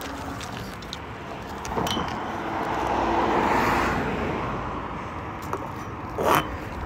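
A road vehicle passing on the bridge, its noise swelling to a peak about three seconds in and then fading away. A brief scrape near the end.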